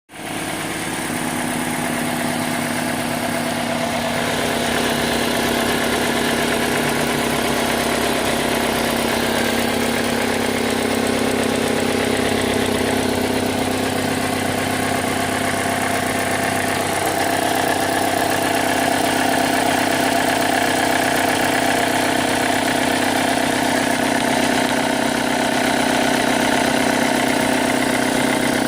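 2005 Chevy Cobalt's 2.2-litre four-cylinder engine idling steadily, with a slight shift in pitch about 17 seconds in. The engine has logged a P0304 code, cylinder 4 misfire detected.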